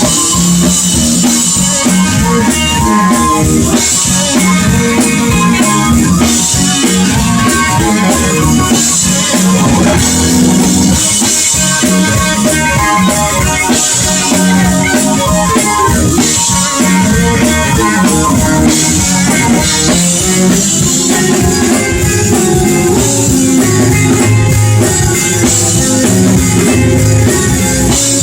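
Live blues-rock band playing loudly: electric guitar lines over drum kit with cymbals and bass.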